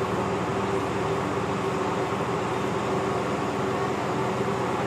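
Steady mechanical hum holding several fixed tones over an even background noise, with no change in level.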